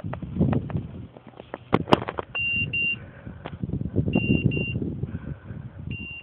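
Beeper collar on a pointing dog sounding its point signal: three high double beeps about two seconds apart, the sign that the dog is holding point on a woodcock. Under it, rustling and crackling of dry grass and brush.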